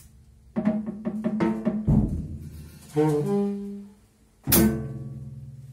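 Saxophone playing a run of short notes with drum-kit accompaniment. A sharp drum-kit hit comes a little past halfway, with a held note ringing on and fading after it.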